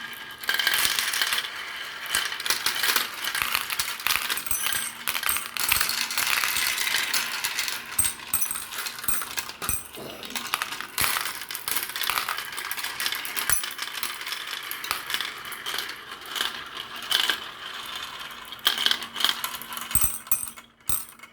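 Many glass marbles rolling and clattering down a marble run, a continuous rattle of rolling with frequent sharp clicks as they hit each other and the track.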